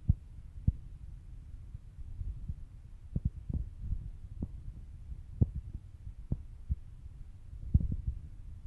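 Low rumble with irregular dull thumps, about one or two a second, typical of a handheld camera or phone being carried along by someone walking.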